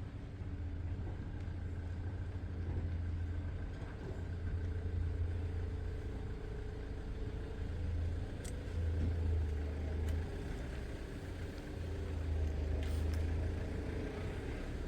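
A motor running with a low hum that swells and eases several times.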